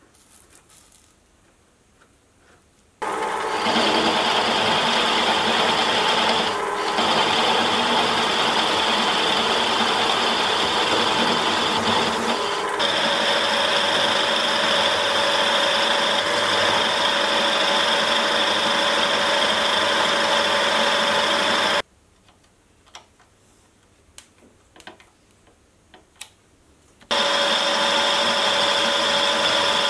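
Sieg benchtop milling machine running with a boring head cutting a counterbore in a metal block. It starts about three seconds in and runs steadily with a high whine, stops suddenly about two-thirds of the way through, then starts again near the end. Light clicks come in the quiet gaps.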